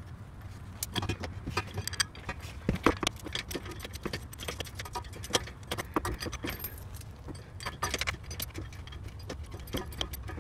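Irregular small metallic clicks and clinks of a bolt and washer being worked by hand into a steel step-rail mounting bracket, over a steady low rumble.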